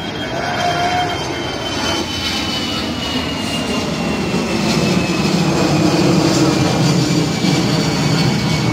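Jet engines of an AirAsia Airbus A320 climbing out after takeoff: a steady, loud roar that grows louder, with a high whine slowly falling in pitch.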